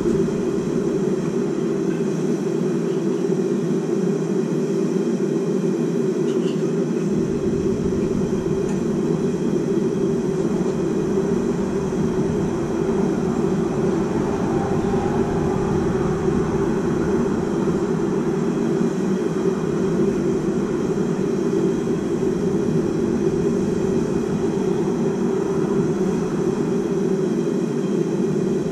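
A blacksmith's forge running: a loud, steady, unbroken rushing noise that does not change in level.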